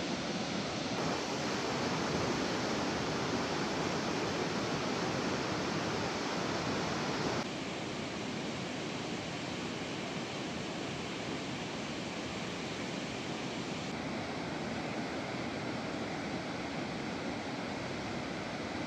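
Steady rush of a large waterfall and the rapids below it in heavy, muddy flow. The level and tone shift abruptly about a second in, about 7 seconds in, and again about 14 seconds in.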